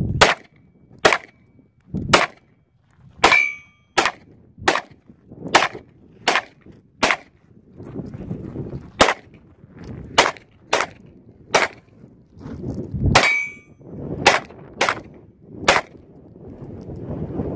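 Semi-automatic pistol fired about seventeen times, mostly around one shot a second, with a couple of pauses of a second and a half or so. Two of the shots are followed by a brief metallic ring.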